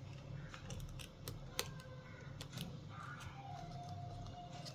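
Faint, scattered small clicks and ticks of hands working a laptop keyboard's thin flex ribbon cable into its connector.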